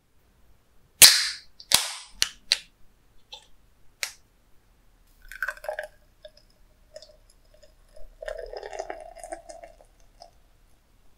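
Aluminium beer can cracked open with a loud sharp pop and hiss about a second in, followed by a second crack and a few clicks of the tab. Beer is then poured from the can into a glass, splashing and foaming, in two spells, the second louder.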